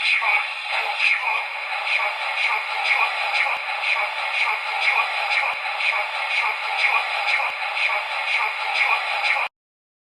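Electronic alarm tune from a Kamen Rider Durandal themed alarm clock: a looping synth jingle with a steady beat, thin and tinny with no bass, cutting off suddenly near the end.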